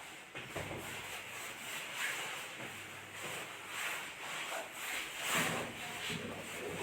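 Soft irregular rubbing and rustling of hands moving over a patient's body and clothing during hands-on chiropractic treatment, over a faint low hum.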